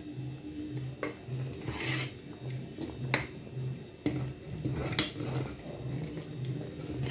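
Metal spoon scraping and knocking against the inside of a pot while stirring ogbono soup, with a few sharper scrapes about one, two, three and five seconds in.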